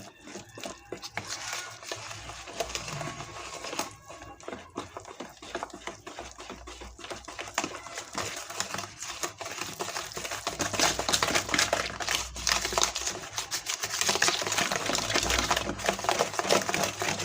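Cake batter being whisked in a bowl: rapid ticking and scraping of the whisk against the bowl, louder in the second half.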